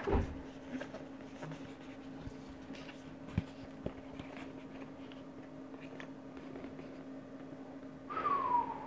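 Quiet handling of a cardboard watch presentation box: a soft thump at the start, then faint rustles and a couple of light taps over a steady low hum. About eight seconds in comes a short falling 'ooh'-like vocal sound.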